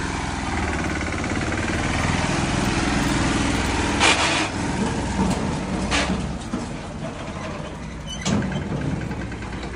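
Swaraj tractor's diesel engine running steadily as the tractor moves slowly, with three short bursts of noise about four, six and eight seconds in.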